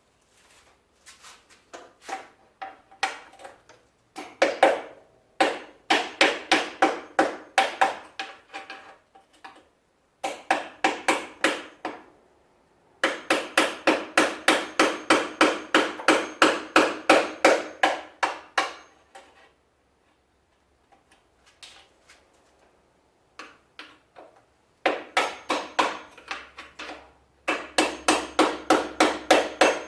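Hammer blows on metal in rapid runs, about three to four strikes a second, with short pauses between runs and a faint metallic ring under some blows.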